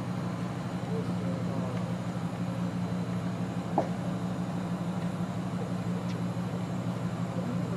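Steady low hum of emergency vehicles' engines idling, with a single sharp click about four seconds in.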